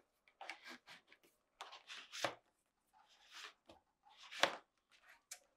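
Plastic refrigerator water-line tubing being fed by hand through a hole in the refrigerator housing: faint rubbing and scraping with a few light taps, the sharpest about two and four and a half seconds in.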